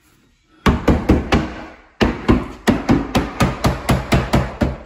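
Finish nails being driven into the wooden door jamb: a rapid series of sharp strikes, about four a second, starting a little over half a second in, with a short break near two seconds.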